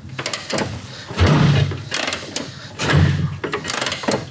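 1947 Harley-Davidson being kick-started with the ignition on after priming: two hard kicks about two seconds apart, each a short low churn of the engine turning over without catching, with mechanical clicks and rattles between.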